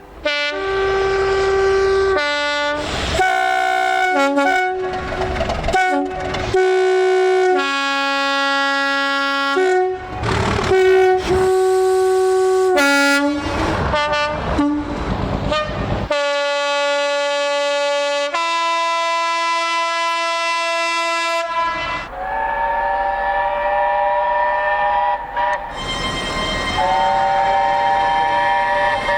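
Train horns sounding one after another in a string of short clips cut together, mostly quick two-note blasts that switch between a high and a low note. Near the end come two longer held horn blasts over the rumble of a passing train.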